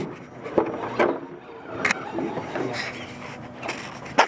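Scale RC rock crawlers knocking and clattering against rock and each other as they crawl over the course. Several sharp knocks, the loudest near the end.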